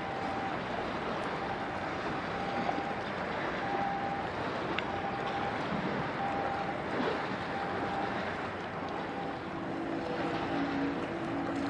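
Steady rushing wash of wind and water as a general cargo ship passes close by, its bow wave breaking. A faint short tone repeats about once a second, and a low hum joins near the end.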